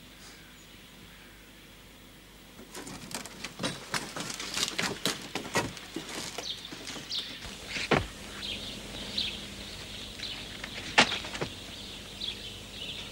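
Birds chirping in short repeated calls, over a scatter of crackles and snaps that start about two and a half seconds in, with two sharper snaps in the second half.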